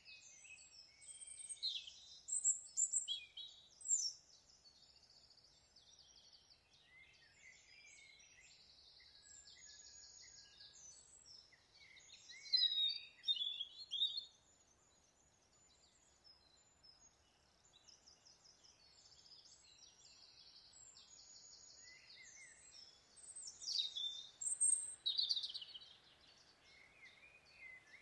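Woodland birds singing and calling: a buzzy trill that comes back again and again, mixed with other chirps. There are three loud bursts of chirping, near the start, in the middle and near the end, over a faint steady background hush.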